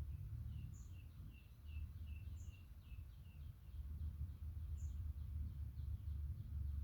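Birds chirping: a run of short high chirps, about three a second, fading after the first few seconds. A few higher chirps fall in between, over a steady low rumble.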